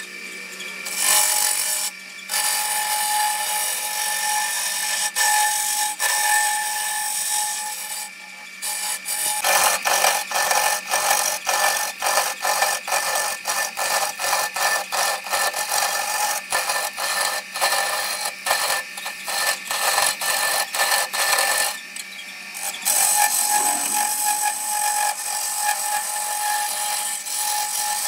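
Wood lathe running with a steady motor hum while a hand-held turning chisel cuts a spinning wooden spindle: a rough scraping hiss with rapid chatter. The cutting breaks off briefly a few times when the tool lifts away.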